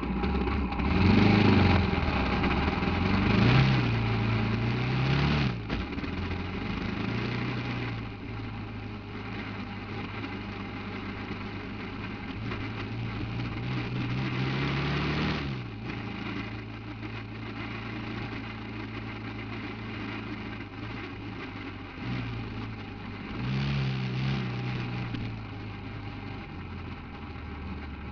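Off-road buggy engine running, revving up hard in the first few seconds, again building up to about fifteen seconds in and once more near the end, and dropping back to a lower, steadier speed in between.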